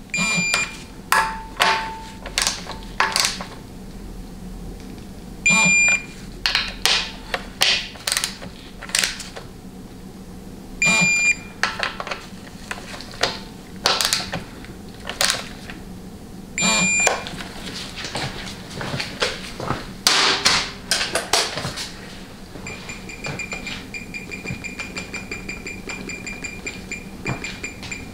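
Digital torque wrench ratcheting valve body bolts down on a 700R4 transmission, clicking in strokes, with a short beep four times as a bolt reaches its set torque. Near the end a steady beep holds for about five seconds over quick ratchet clicks.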